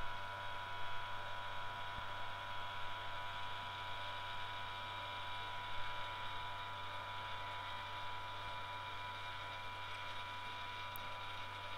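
Electric vacuum pump running steadily with a low hum as it draws the air out of the chamber.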